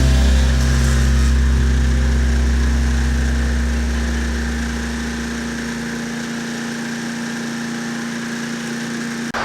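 MTD Yard Machines wood chipper's small gas engine running steadily, with no branches being fed. Its low rumble fades and grows quieter about halfway through.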